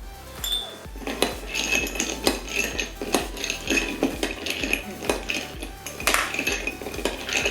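Metal spoon stirring ice cubes in a glass of Vietnamese coffee, with repeated irregular clinks and short ringing.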